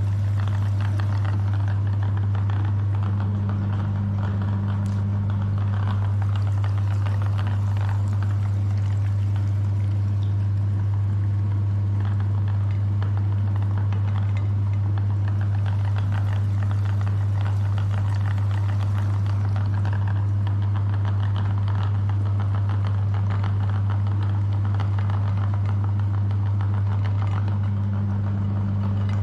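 Electric meat grinder running steadily: a loud, even motor hum with a rattly crackle over it.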